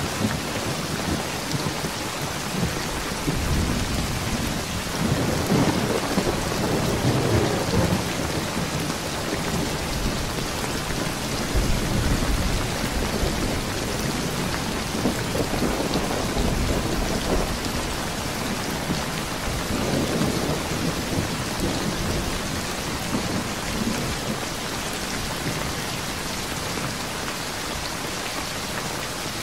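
Steady rain falling as an even hiss. Slow, low rumbling swells rise and fade several times beneath it, strongest about five to eight seconds in.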